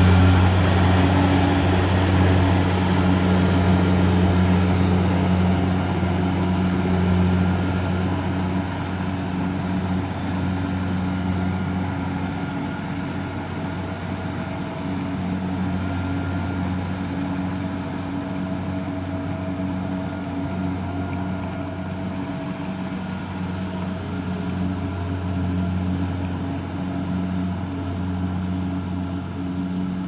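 Kubota DC70 rice combine harvester's diesel engine and machinery running steadily as it cuts the crop, a low even drone that fades over the first dozen seconds as the machine moves away, then holds.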